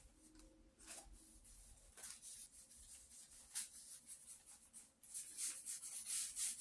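Paintbrush dragging green paint across a sheet of paper in a series of soft, scratchy strokes, growing louder and closer together in the last second and a half.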